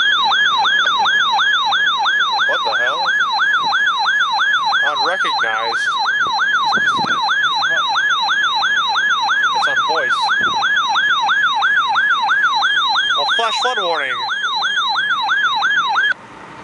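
Electronic yelp siren alarm of a weather alert radio, warbling rapidly up and down about two and a half times a second: the signal that a warning has been received. It cuts off abruptly near the end.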